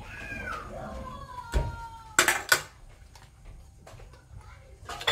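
Metal cutlery clinking on dishes: two sharp clinks a little past two seconds in and another near the end. Before them comes a long, high whine that slowly falls in pitch.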